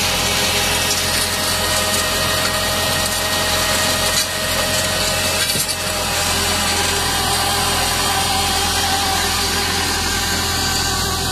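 Kirpy asparagus harvester running: a steady engine drone carrying several constant tones, over a continuous rushing, rattling noise from the working machinery. The sound dips briefly about four to six seconds in.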